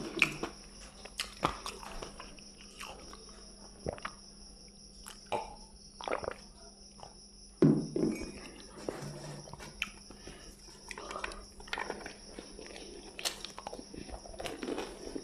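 Close-up eating sounds: fingers mixing rice and picking at fried fish on a plate, with soft sticky squishes and clicks and mouth sounds of biting and chewing. The sounds are irregular, with a louder burst about eight seconds in.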